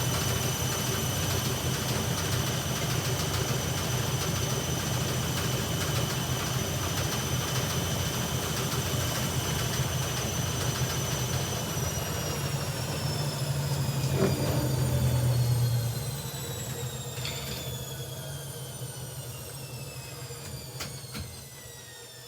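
Hoover Ecologic Computer 1300 washing machine on a spin-only cycle: the motor whines steadily over a low drum rumble. About twelve seconds in, the whine begins falling in pitch and the sound fades as the drum slows down, with a few short clicks near the end.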